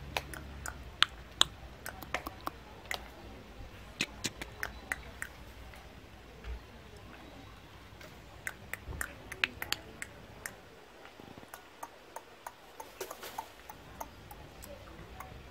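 A string of sharp, irregular clicks, a few of them loud, with a quieter spell in the last third.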